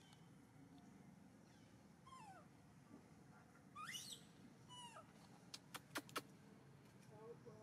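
Faint squeaky macaque calls, a few short cries that slide up and down in pitch, with a quick run of four sharp clicks a little past halfway.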